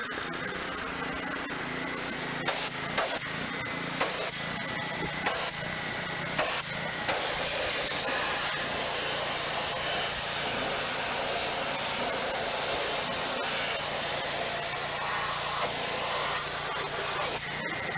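Pressure washer running and spraying: a steady hiss over the hum of its motor, with a few sharp knocks in the first several seconds.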